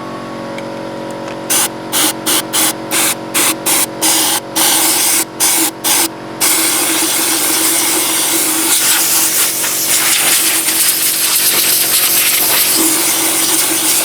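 Chainsaw idling, then blipped in about ten short bursts of throttle over the next five seconds, then run at full throttle continuously, cutting into wood to hollow out the middle of the carving.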